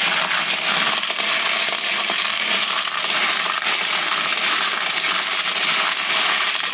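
A mass of empty 9mm Luger brass cases clattering continuously in a plastic basin as they are stirred by hand, so that they settle into the feeder tubes.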